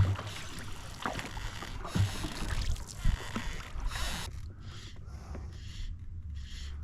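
Canoe being paddled: a few knocks against the hull and water sloshing, then, from about four seconds in, a regular run of soft paddle swishes about twice a second.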